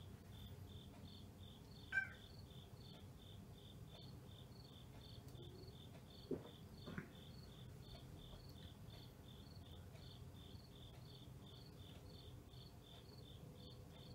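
A cricket chirping steadily, about three high chirps a second. A single sharp click comes about two seconds in, and two short soft sounds follow around six and seven seconds.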